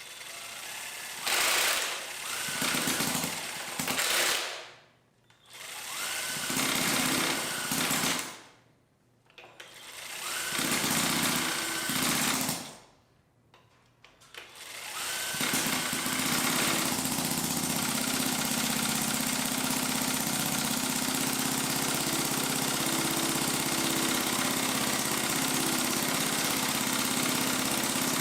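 A noisy machine running in three bursts of a few seconds each with short silences between, then running steadily for the rest of the time.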